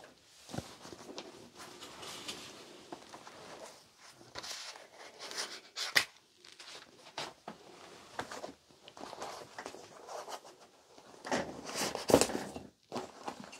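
Books and papers being handled at a shelf and desk: irregular rustling and shuffling with small knocks, a sharp click about six seconds in and a louder clatter near the end.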